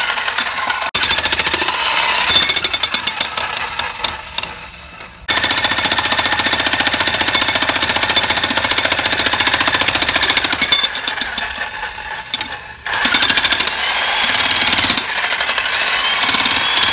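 Jackhammer hammering into the top of a fieldstone chimney, breaking up the stones and mortar. It runs in three long spells with two short letups between them.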